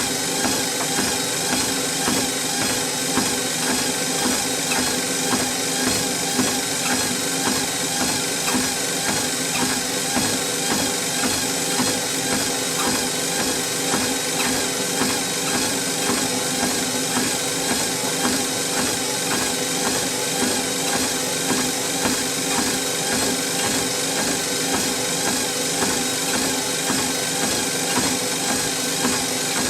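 Treadmill running with a steady motor and belt hum, under the regular footfalls of someone walking on the belt.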